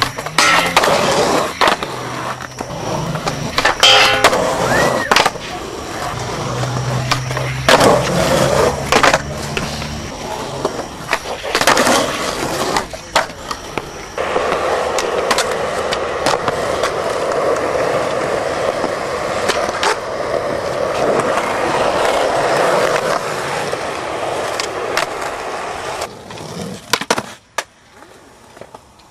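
Skateboards on concrete: wheels rolling, sharp tail pops and landings clacking down, with the board grinding a metal handrail and concrete ledges. A long unbroken stretch of wheels rolling runs through the middle.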